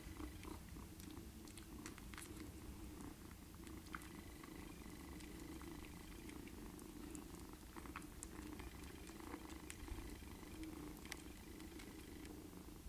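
Red British Shorthair cats purring steadily while a five-week-old kitten nurses from its mother, with faint scattered small clicks from the suckling and grooming.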